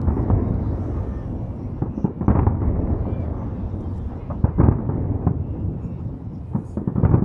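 Aerial fireworks shells bursting in a display, a series of booms over a continuous low rumble. The loudest bangs come right at the start, about two and a half seconds in, around four and a half seconds in, and near the end.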